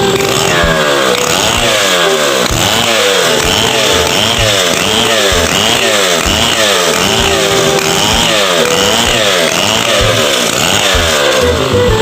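Two-stroke chainsaw running hard while cutting wood, its engine pitch rising and falling over and over, about twice a second, as the load on the chain comes and goes.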